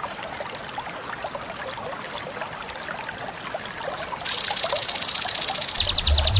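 A background chorus of faint, scattered chirping animal calls. About four seconds in, a loud, high-pitched buzzing call starts, and near the end it breaks into a rapid pulsing trill.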